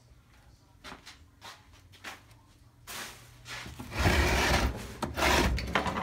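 A few faint clicks, then a loud rubbing, scraping noise lasting about two seconds near the end.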